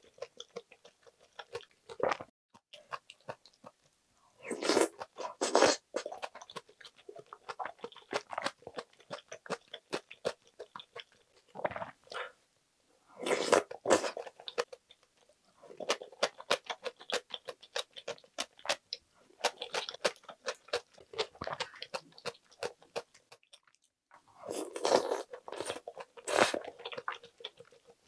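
Close-miked eating of budae-jjigae (Korean army stew with ramen noodles, ham and sausage): wet chewing and small mouth clicks, with three louder bursts of crunching and slurping as spoonfuls go in.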